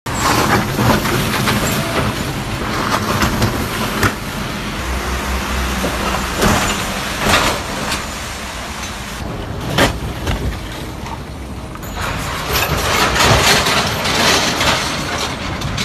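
Road traffic on a wet street: trucks and cars driving through a deep pothole, their wheels hitting it with several sharp bangs over engine rumble and tyre noise. The hard hits are the kind of impact that knocks a vehicle's wheel alignment out.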